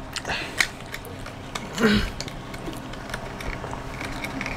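Faint clicks and rustling from hands handling a small wrapped snack and its packaging, with a brief vocal sound about two seconds in.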